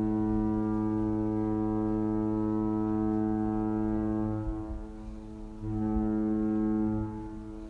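A low, steady horn-like tone held at one pitch for about four seconds, breaking off, then sounding again for about a second and a half near the end.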